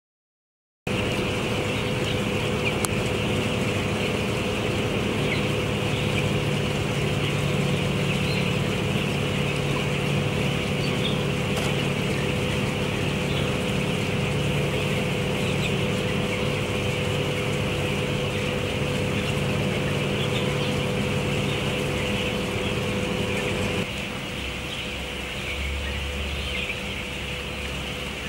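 A large flock of broiler chicks peeping together in a dense, continuous chorus over the steady hum of poultry-house ventilation fans. Near the end the hum gets quieter and changes.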